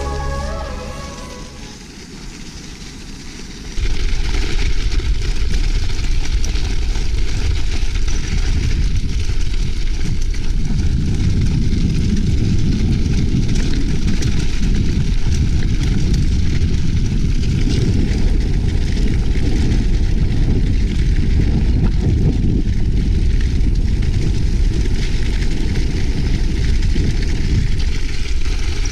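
Strong wind buffeting an action camera's microphone during a bicycle ride over snow: a loud, steady rumbling noise that starts suddenly about four seconds in, after music fades out. A dog starts barking right at the end.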